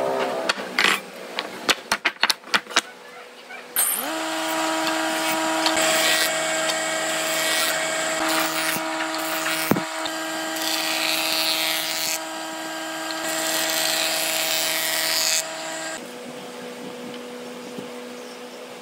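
A few sharp taps and clicks, then a table saw starting up about four seconds in and running steadily with its circular blade cutting through a wooden board, the cutting noise swelling in stretches; it stops near the end, leaving a fainter steady hum.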